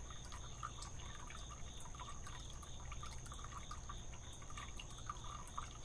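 Faint backyard ambience: a steady high thin drone and a low hum, with many small scattered chirps or ticks throughout.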